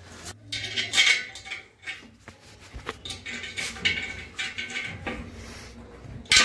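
Stainless steel vanity frame and its bolts being handled, giving several short, uneven bursts of metallic clinking and scraping with a faint ring.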